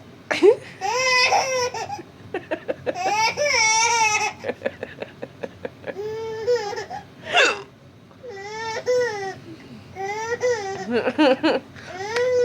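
A baby laughing and squealing in about six long, high-pitched calls, with quick runs of short laughing pulses between them. The mother's short, sharp hiccups break in now and then.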